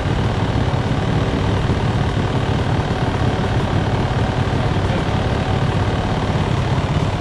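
Motorcycle engine running at a steady speed, with no revving.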